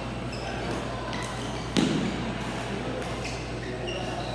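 Badminton rackets hitting the shuttlecock during a doubles rally, a few sharp hits with the loudest about two seconds in. Short high squeaks of court shoes come in between, over a steady low hum.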